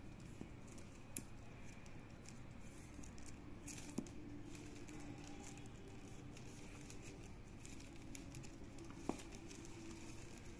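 Faint rustling and light clicking of plastic craft wire strands handled and pulled into knots by hand, with a few sharper ticks about a second in, about four seconds in and near the end.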